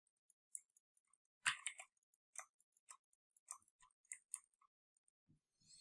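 Near silence broken by about a dozen faint, irregular clicks, spread unevenly over a few seconds.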